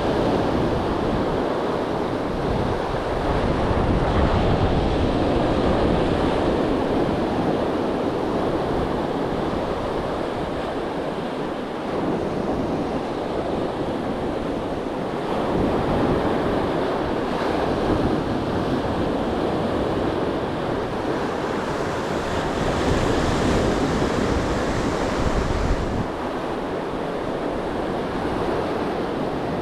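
Sea surf washing onto the beach in surges, with wind buffeting the microphone as a low, unsteady rumble.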